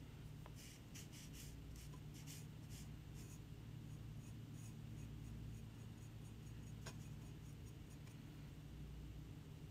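Faint scratchy strokes of a small brush dabbing thick glaze onto a ceramic piece, several close together in the first few seconds and a sharper tick about seven seconds in, over a low steady hum.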